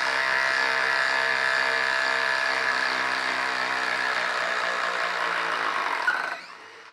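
DeWalt DCF887 20V brushless impact driver hammering steadily under load as it drives a long lag screw into a wooden stump. It stops a little after six seconds in.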